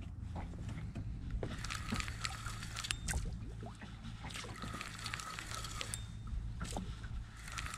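Fishing reel being cranked in several stretches of whirring with small ticks, reeling in a small hooked snook, over a steady low rumble.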